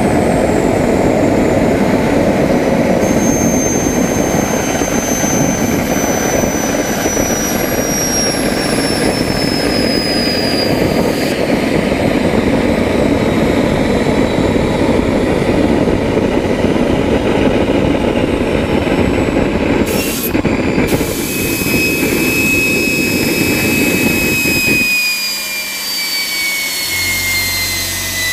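Homemade radial-turbine turbojet engine running: a loud steady roar with a high turbine whine that slowly sinks in pitch. Near the end the roar drops away and the whine keeps falling as the engine is shut down and spools down.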